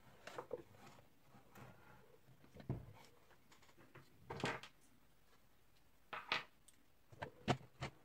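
Plastic casing of an Electrolux Super Cyclone vacuum cleaner being handled while its screws are undone: scattered clicks and knocks of plastic and tool, with a handful of louder knocks spread through.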